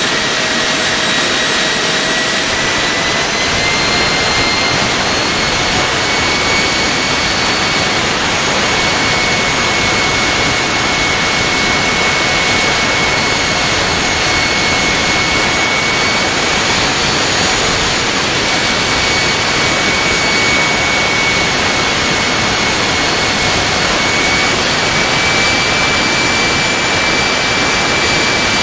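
Handmade turbojet engine running at a steady speed: a loud roar with a high whine that rises slightly in pitch about three seconds in, then holds, with small steps in pitch later on.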